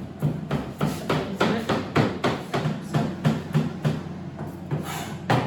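Kitchen knife rapidly chopping garlic on a cutting board: a steady run of sharp blade strikes, about four a second.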